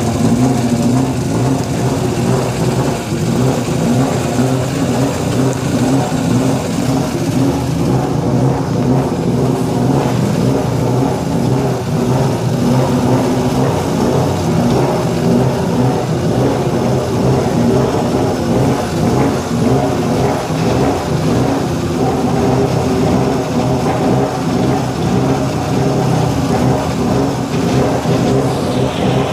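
1997 Subaru Impreza WRC's turbocharged flat-four engine running steadily at low revs while the car is manoeuvred slowly into a parking spot.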